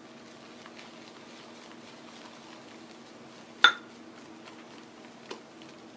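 Parker pure badger-bristle shaving brush whipping lather in a lather bowl: faint soft wet swishing, with one sharp ringing clink of the bowl a little past halfway and a lighter knock about a second and a half later.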